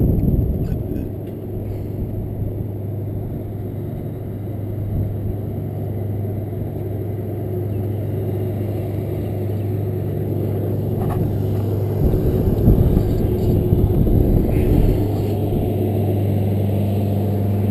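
A steady low mechanical hum like an engine running at constant speed, with gusts of wind rumbling on the microphone from about twelve seconds in.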